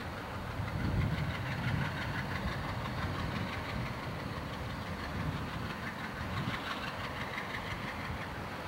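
Diesel freight locomotive engines working under load as the train pulls slowly ahead: a steady low rumble that gets a little louder about a second in.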